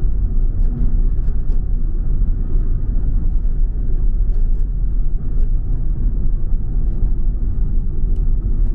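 Steady low rumble of a moving car's engine and tyres on tarmac, heard from inside the cabin, with a few faint light ticks now and then.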